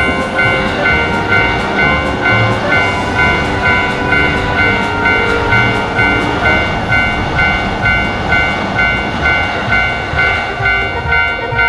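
Railroad crossing alarm dinging steadily, an even beat of just under two dings a second, over the rumble of a passing train.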